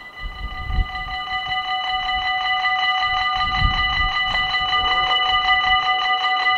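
Level crossing warning bell ringing rapidly and evenly as the red lights flash, warning that a train is approaching. It grows louder over the first couple of seconds. Wind buffets the microphone twice.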